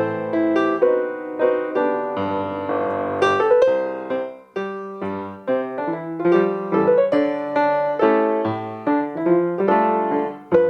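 Solo piano accompaniment to a silent comedy, playing a quick run of notes and chords in a steady rhythm, with a longer held chord about two to four seconds in.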